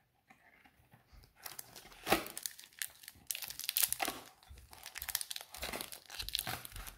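Foil wrapper of a Pokémon Cosmic Eclipse booster pack crinkling and tearing as it is handled and torn open, starting about a second and a half in with crackling in quick irregular bursts.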